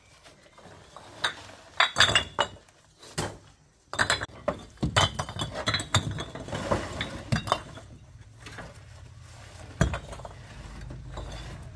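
Irregular clinks and knocks of hard objects being handled: a cluster of sharp strikes about two seconds in, a busy run in the middle, and one loud knock near the end.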